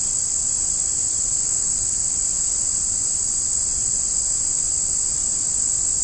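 Steady, high-pitched chorus of singing insects, going on without a break.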